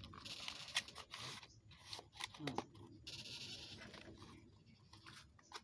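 Packaging being handled by hand: rustling and scraping with many small clicks, in uneven spells.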